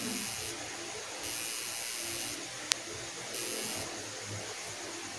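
Tattoo machine buzzing in three short stretches, the middle one about a second long, with a single sharp click a little past halfway.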